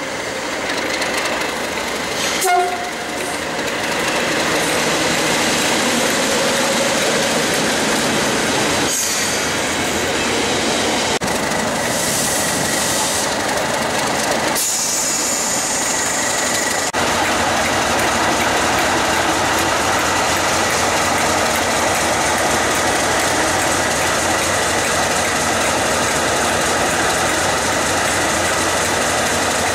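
Class 37 diesel locomotive 37608 running light past at low speed, its English Electric V12 engine giving a steady heavy rumble over wheels clacking on the rail joints. A brief horn note sounds about two and a half seconds in.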